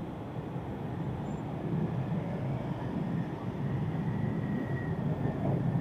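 Street traffic: motorbikes and cars running around a roundabout, a steady low rumble that grows a little louder about two seconds in.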